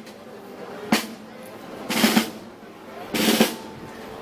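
Snare drums of a festival parade band playing short accented rolls, one burst roughly every second, over a steady lower bed of sound.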